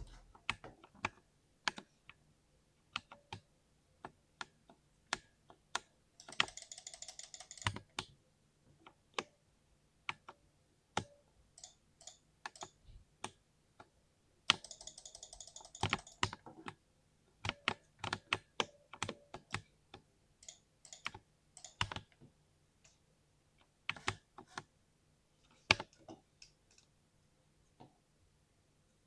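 Typing on a 60% mechanical keyboard with a deep, thocky keystroke sound: single keystrokes at an uneven pace, with two short flurries of rapid strokes, about six seconds in and again about fifteen seconds in.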